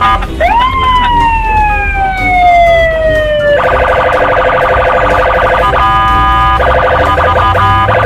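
Police patrol car siren: a rising whoop that falls slowly over about three seconds, then a fast, choppy pulsing tone with two short breaks, over a low steady traffic rumble.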